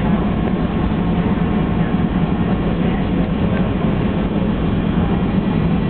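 Steady, loud rumbling hiss of indoor-arena background noise, with a low hum running under it and no distinct events.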